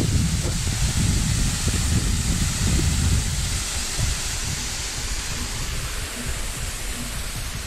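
Water from a dam's downspout pipe falling down a rock face and splashing onto the rocks below: a steady rushing hiss. Wind buffets the microphone with a heavy rumble for the first few seconds, then eases.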